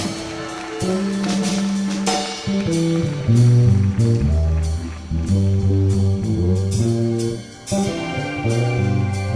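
A funk-fusion band playing live: a moving electric bass line over drum kit and cymbal hits, with a short break in the groove near the end.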